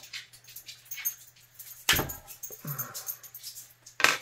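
Small metal clicks and taps from hand-working the pivot pin out of a Daisy 922 air rifle's pump arm, with a sharper click about two seconds in and another near the end as a part is set down on the table.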